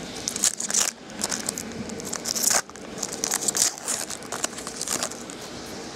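Baseball card packs and cards being handled: several short papery crinkling and tearing rustles with small clicks between, as foil wrappers are opened and cards are shuffled through.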